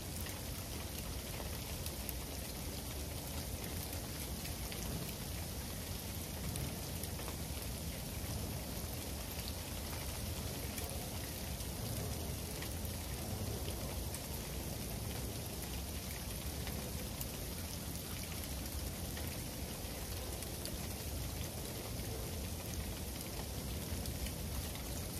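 Freezing rain falling steadily, many fine ticks of drops striking hard surfaces, with a low steady rumble underneath.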